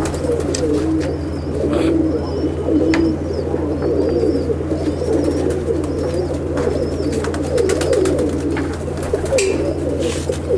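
Many Andhra domestic pigeons cooing together in a loft: a dense, overlapping chorus of low coos, over a steady low hum.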